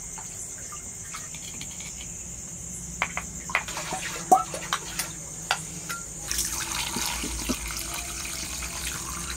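A stream of water poured into a steel bowl of chicken pieces, splashing steadily from about six seconds in. Before it there are a few light clicks and knocks of handling. Crickets chirp steadily in the background.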